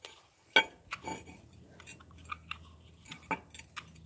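Hands working at a brake caliper: a sharp click about half a second in, then scattered lighter clicks and taps of parts being handled.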